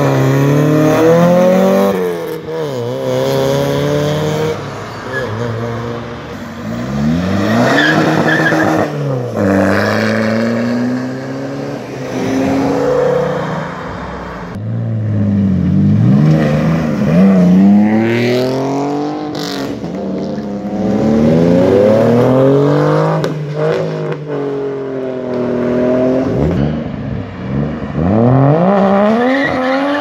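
Modified cars accelerating away one after another, engines revving hard and climbing in pitch through the gears, several at once at times, with tyre squeal now and then.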